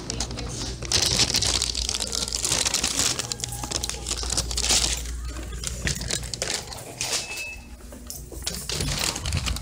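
Close crinkling and rustling handling noise at the microphone, dense and irregular throughout, over a low steady hum.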